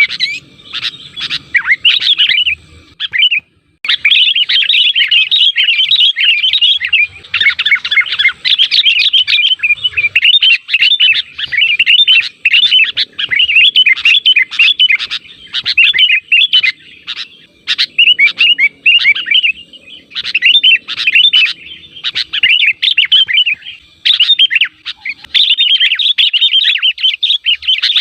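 Sooty-headed bulbuls (kutilang) calling and chattering noisily in rapid, fast-repeating whistled notes, with a short pause about three seconds in. This is a lure call, meant to set other bulbuls answering.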